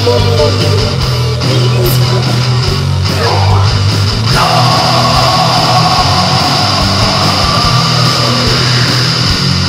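Loud heavy rock music with electric guitar. About four seconds in, a long, high held note comes in over the band.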